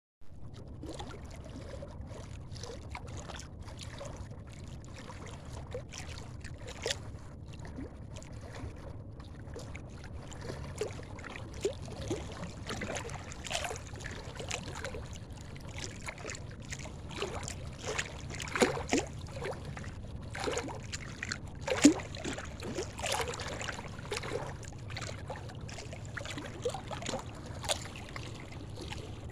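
River water slapping and splashing irregularly against concrete bank-protection blocks, over a steady low rumble. One splash about three quarters of the way through is louder than the rest.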